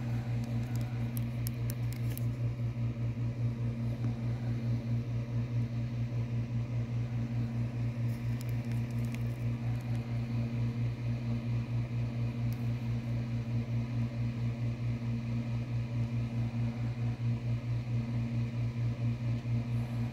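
Steady low mechanical hum with a fast, even pulse, like a small motor or appliance running, with a few faint clicks.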